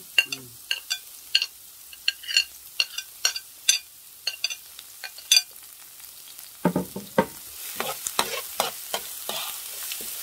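Chopped onion and green onion frying on high heat in oil in a nonstick pan, crackling with irregular sharp pops. About seven seconds in, knocks and scrapes against the pan begin and the sizzle rises into a steadier hiss.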